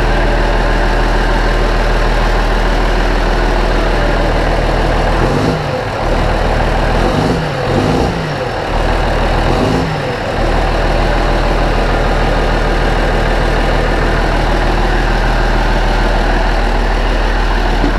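MTZ-2022.3 tractor's freshly rebuilt D-260 six-cylinder turbo diesel idling steadily on its first run after the repair, being run in gently. Its note wavers up and down a few times in the middle.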